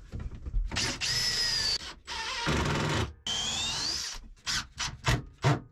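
Cordless drill/driver driving bronze Phillips wood screws into a wooden cleat. It makes two runs of about a second each, the motor whine rising in pitch on the second, then several short trigger taps to seat the screw gently.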